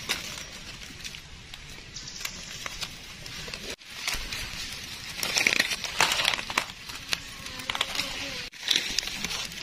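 Dry leaf litter rustling and crackling in irregular bursts as it is disturbed on the forest floor. The sound cuts out briefly twice.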